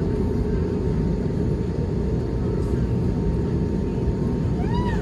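Cabin noise of an Airbus A320neo taxiing, heard from a window seat: a steady low engine and airframe rumble with a faint steady tone above it. Near the end there is a short call that rises and falls, like a voice.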